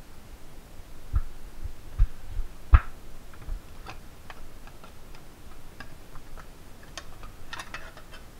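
Bench-mounted lever shear cutting sheet metal, giving a string of sharp clicks and clacks as the blade bites through the metal. The heavier knocks fall in the first three or four seconds, then come lighter, irregular clicks, with a denser cluster near the end.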